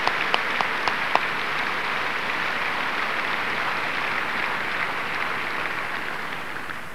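A large audience applauding. A few sharp individual claps stand out in the first second or so, and then the applause gradually dies away.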